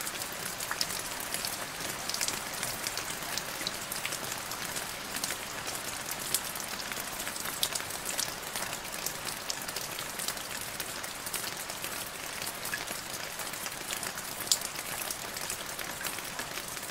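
Steady rain falling into a puddle: a dense patter of small drops, with a few louder single drops standing out now and then.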